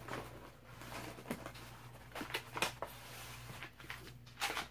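Light taps and rustles of a cardboard kit box and small plastic bags being handled on a wooden table, a few scattered clicks with a louder rustle near the end, over a steady low hum.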